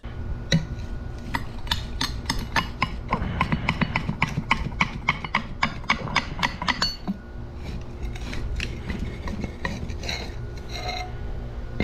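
Steel blade of a long-handled scraper jabbing and scraping between pavers to pry them loose: a rapid run of sharp metal-on-stone clicks and scrapes, about three or four a second, for the first seven seconds, then slower scraping and knocks. A steady low rumble runs underneath.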